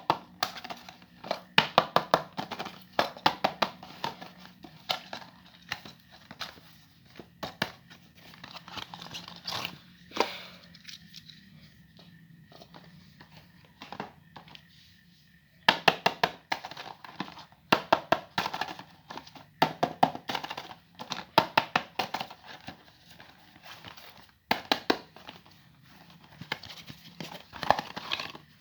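Gift packaging being unwrapped by hand: paper and plastic crinkling and tearing in bursts of rapid crackles, with a few soft thunks and short pauses between handfuls.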